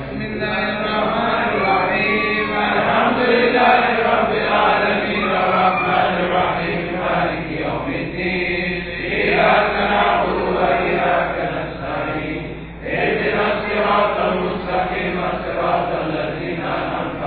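Voices chanting a Sufi dhikr litany together in unison, one chanted phrase running into the next, with a brief drop about three-quarters of the way through.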